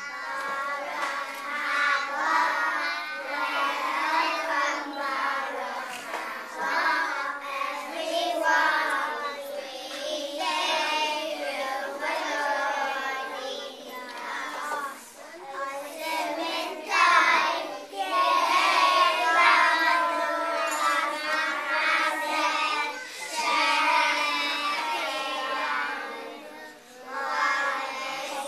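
A group of young boys singing a song together, coming in suddenly at the start, with a few brief breaks between phrases.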